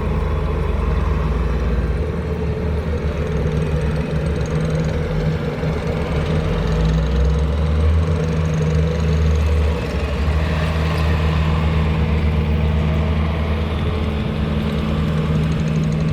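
Bobcat T650 skid steer's diesel engine running steadily, its pitch and load shifting slightly now and then.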